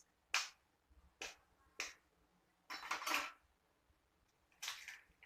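An egg being cracked: a handful of short, sharp taps and cracks of shell, spread a second or so apart.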